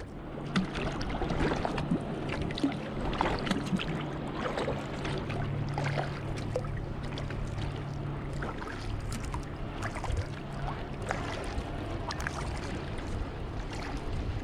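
Kayak paddling: paddle strokes dipping and dripping, with water splashing and lapping against the hull of the Wilderness Pungo kayak. A low steady hum runs underneath and stops about ten seconds in.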